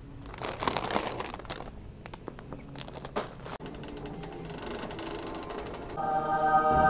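Plastic snack bags crinkling as they are taken off the shelf and dropped into a plastic shopping cart, with scattered clicks, then a steadier rustle and rattle as the cart moves. About six seconds in, music with held notes comes in.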